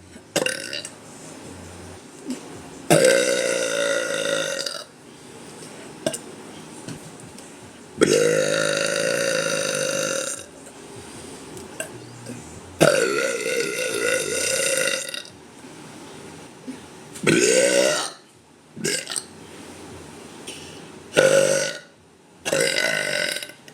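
A woman burping, a series of about six long burps with short pauses between, the longest lasting over two seconds.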